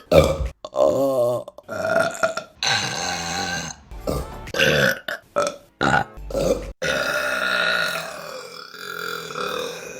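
Women burping: about nine separate burps cut one after another, mostly short, some with a wavering pitch, and a long drawn-out one in the last three seconds.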